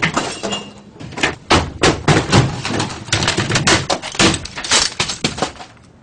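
Office equipment and desk clutter being knocked over and smashed: a dense, irregular run of crashes, bangs and clatters that dies away just before the end.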